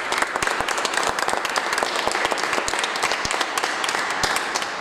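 Small seated audience applauding: a dense patter of many hands clapping that begins to die down near the end.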